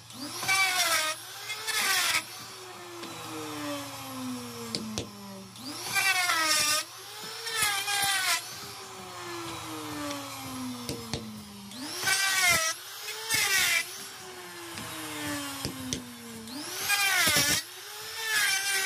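Small electric grinder with a spinning disc, its motor running steadily while wood is pressed against it in loud rasping bursts that come in pairs about every five or six seconds, shaping a wooden sickle handle.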